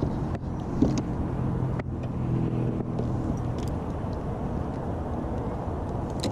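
Steady drone of highway traffic from the nearby interstate, with a few light clicks and a knock a little under a second in.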